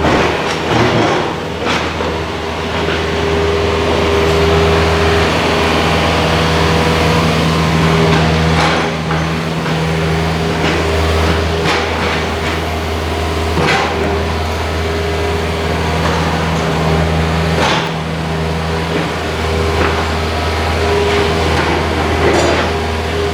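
Steady low machine hum with a few held tones above it, broken by short sharp knocks roughly every few seconds.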